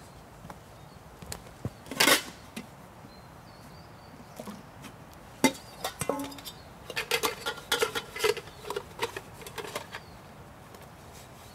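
Metal camping gear being handled, clinking and knocking together: a loud knock about 2 s in, a sharp click midway, then a quick run of light clinks.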